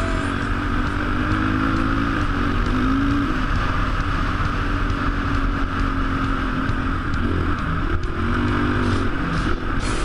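Onboard sound of a sport quad ATV's engine running hard along a dirt trail, its note rising and falling a few times as the throttle is worked.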